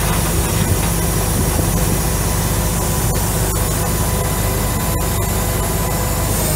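Heavy diesel truck engine idling steadily: the Mercedes-Benz MBE900 6.4-litre inline-six of a 2006 Freightliner M2 106 wrecker.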